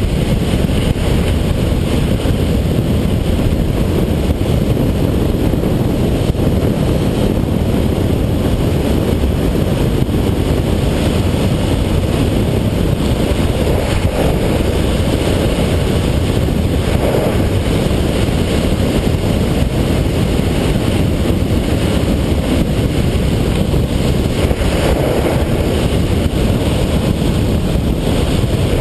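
Steady wind rush buffeting the microphone of a camera riding on a fast downhill skateboard, mixed with the continuous rumble of skateboard wheels rolling on asphalt.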